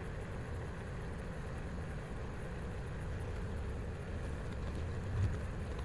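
Kubota L2501 tractor's three-cylinder diesel engine running steadily at low revs, with a brief low thump about five seconds in.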